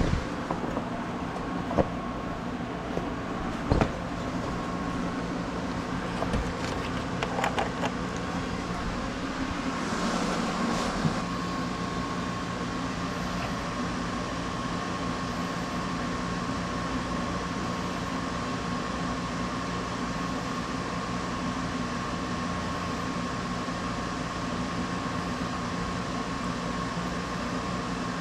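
Steady mechanical hum, with a few sharp knocks in the first four seconds and a brief hiss around ten seconds in.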